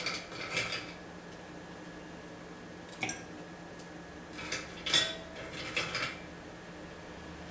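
Ice cubes being taken from a metal ice bucket and dropped into a glass: several separate clinks and knocks spread through the moment, a couple leaving a short ring.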